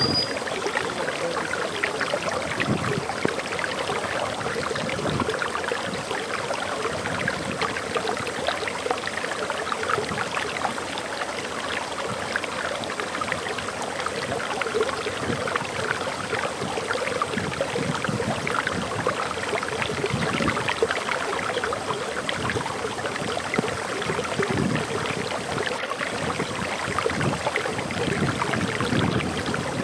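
Water flowing and splashing over a waterfall in a steady, continuous rush, full of small splashes.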